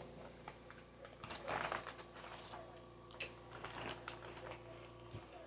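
Quiet room tone with a steady low hum, a soft rustle about a second and a half in and a few faint clicks.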